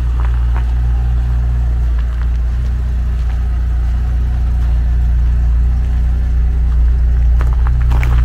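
Chevrolet Niva's four-cylinder engine idling with a steady low exhaust hum that grows louder toward the rear of the car. The rusted-out middle exhaust section with the catalytic converter has been replaced, and the car is now quieter from every side except from behind.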